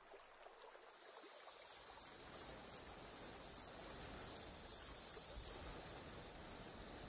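Insects trilling: a steady high-pitched buzz with a faint regular pulse about three times a second, fading in over the first couple of seconds.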